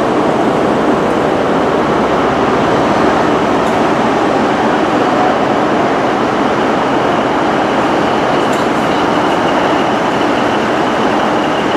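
Class 150 Sprinter diesel multiple units standing at the platform with their underfloor diesel engines running steadily at idle, loud and unchanging.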